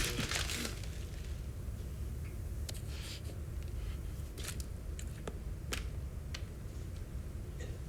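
Low steady room hum with a handful of faint, scattered clicks.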